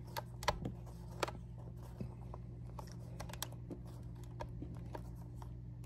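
Light, irregular clicks and ticks of a hand screwdriver turning a small screw into the plastic housing of a handheld Dyson vacuum, over a faint low steady hum.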